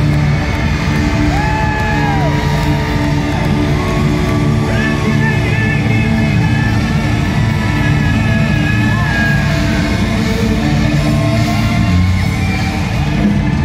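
Live hard-rock band playing loud in a large hall: electric lead guitar playing bending lead lines over steady bass and drums.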